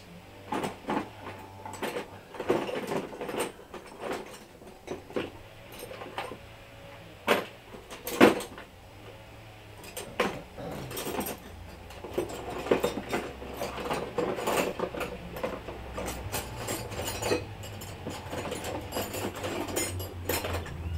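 Ratchet socket wrench clicking in rapid runs, with scattered metal clinks of tools and bolts, as bolts are loosened on a small single-cylinder stationary engine. A low hum rises in the second half.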